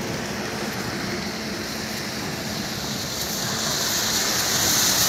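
A motor vehicle driving through standing floodwater on the road, its tyres throwing up a steady hiss of spray over a low engine hum, growing louder as it approaches.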